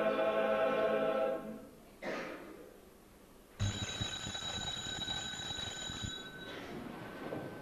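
Choir singing that ends about a second and a half in. About two seconds later a bell is struck once and rings on with a few clear high tones, fading away over the next few seconds.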